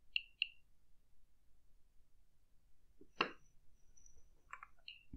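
A homemade Geiger-Müller counter with an STS-5 tube sounding short, faint clicks on its buzzer, each one a detected particle of background ionizing radiation: two quick clicks at the start and one near the end. About three seconds in there is a louder, sharper knock.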